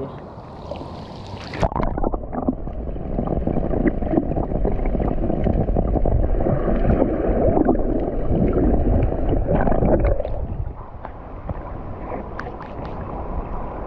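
A splash, then churning, gurgling water sounds with a low rumble for about nine seconds, dying down a little after ten seconds in.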